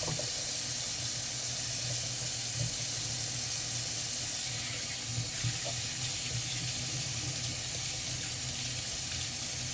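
Kitchen tap running steadily into a sink as a knife is washed under it.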